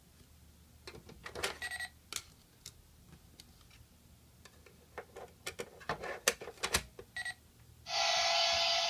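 Scattered clicks and taps of a plastic toy being handled, then, about eight seconds in, a loud electronic ringing buzz from the Tomica DX Sound Police Station toy's speaker, lasting about two seconds like an alarm bell.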